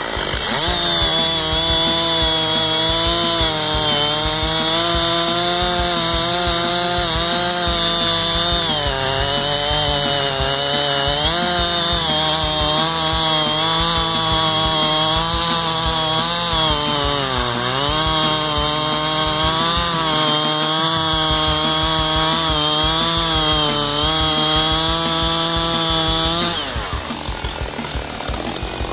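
Stihl MS660 two-stroke chainsaw with its stock factory cylinder running flat out while bucking a large red oak log, the engine pitch dipping and recovering several times as the chain works through the cut. About two seconds before the end the cut goes through and the engine drops off.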